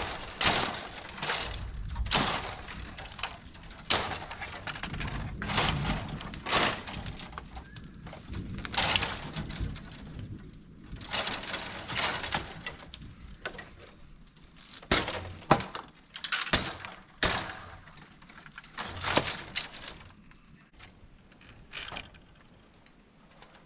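Dry bamboo branches and leaves crackling and snapping in irregular bursts as they are pulled away and cleared. A steady high-pitched tone runs behind them and stops near the end.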